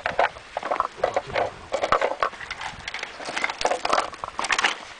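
Irregular dry taps, scrapes and crackles of a dried horseshoe crab shell being handled and shifted against granite rock.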